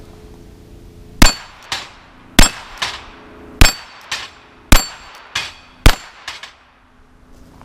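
Five shots from a Ruger Bearcat single-action .22 Long Rifle revolver, a little over a second apart, each followed by a fainter metallic clang from the steel targets.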